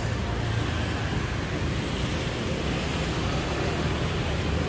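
Steady city street noise: a continuous low traffic rumble with no distinct events.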